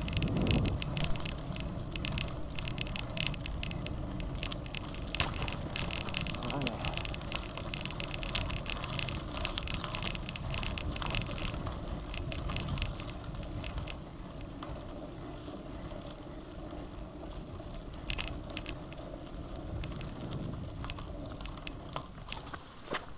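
Gravel bike rolling over a rough track, heard from a camera on the handlebars: a dense clicking rattle from the tyres and bike over the surface, over a steady low wind rumble. The rattle is thickest at first and eases and quietens about halfway through.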